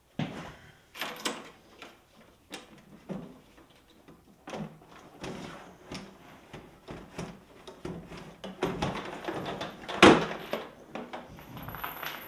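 A heavy NiMH battery pack being hauled up out of an electric scooter's aluminium battery compartment: an irregular run of knocks, scrapes and clatter. The loudest knock comes near the end as the pack comes free.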